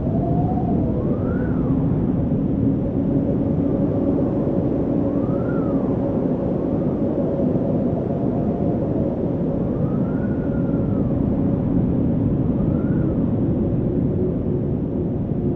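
Wind blowing steadily, a low rushing noise with faint whistling tones that rise and fall every couple of seconds.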